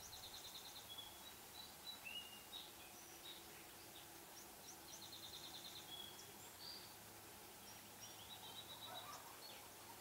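Faint bird calls over low steady background noise: short high chirps and whistles, with two quick trills, one at the start and one about halfway through.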